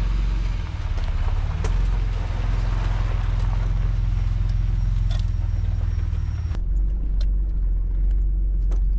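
Mitsubishi Pajero's 3.0 V6 engine running at crawling speed, with branches brushing and cracking against the body as it pushes through overgrown bush. About six and a half seconds in the bush noise cuts off and only a steadier engine drone remains.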